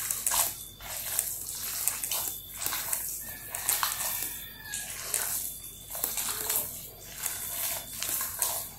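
A hand squeezing and mixing sticky, gummy pão de queijo dough of tapioca starch, grated cheese and eggs in a plastic bowl. The dough gives wet squelches about once or twice a second.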